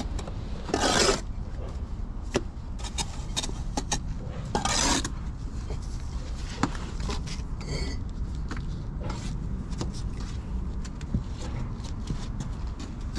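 Bricklayer's steel trowel scraping mortar on brickwork: two short, loud scrapes, about a second in and again about five seconds in, with light taps and clicks of tools between, over a steady low rumble.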